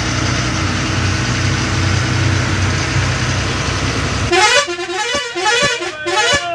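Bus engine running with road noise as the coach drives. About four seconds in it cuts off abruptly, and a loud warbling tune takes over, rising and falling about twice a second over a regular tick.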